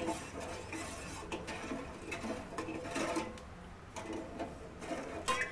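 Steel spoon stirring sugar and water in a steel pot, scraping and tapping against the metal with scattered light clicks, over a low steady hum.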